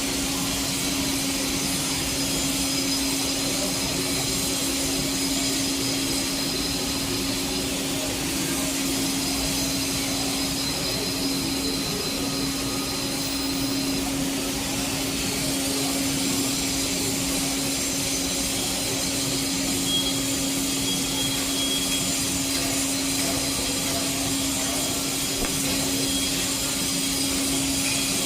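Arc welding the hot pass on a 2G pipe joint: a steady hiss with a constant low hum.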